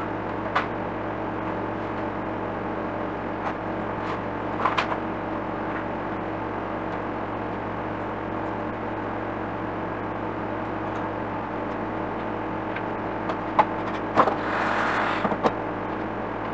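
Steady room hum with a few light clicks and taps as thin wooden trim strips are handled and laid on a wooden tabletop. Near the end come several quick knocks and a short scrape of about a second.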